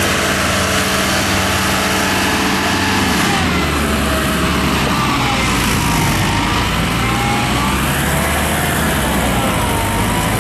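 A large engine of tree-removal or site machinery running steadily, its pitch shifting slightly about three seconds in, with a faint whine rising and falling above it.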